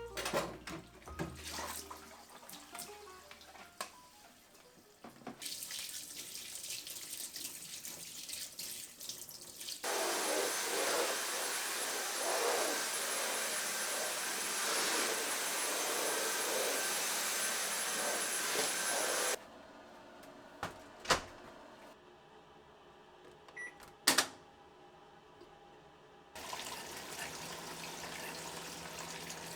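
Tap water running into a sink, loudest in a long stretch of about nine seconds in the middle, with light clatter before it and a couple of sharp knocks after it stops.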